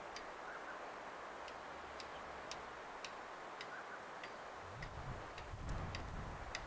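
Short, sharp ticks, about two a second and not quite even, over a steady hiss.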